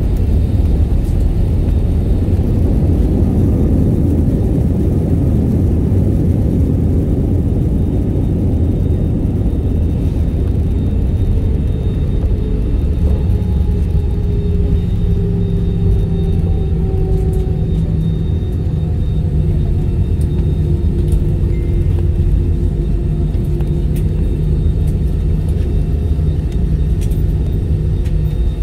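Airbus A320 heard from inside the cabin while rolling on the ground after landing: a steady low rumble of engines and wheels, heavier in the first several seconds, with a faint engine whine slowly falling in pitch from about a third of the way in.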